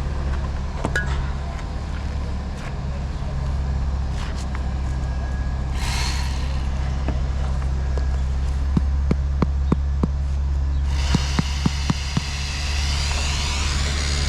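A steady low motor rumble, with a short noisy burst about six seconds in and a quick series of sharp knocks a few seconds later. A high hiss with faint gliding tones comes in near the end.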